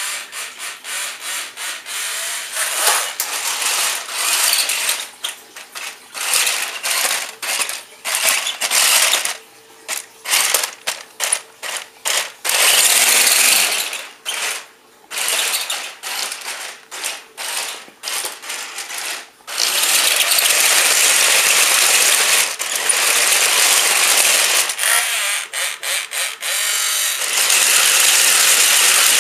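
Tyco Monster Traxx RC toy's electric drive motors and gearboxes whirring on the high-speed setting, in many short start-stop bursts of throttle, then in longer unbroken runs in the later part.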